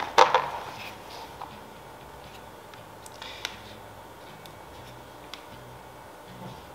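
A replacement laptop battery being taken out of its cardboard box and handled over the open laptop: a few sharp clicks and rustles at the start, then scattered light ticks and taps.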